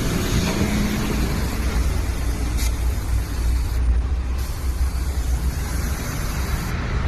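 Portable air compressor running steadily with a low rumble, inflating a freshly plugged tire.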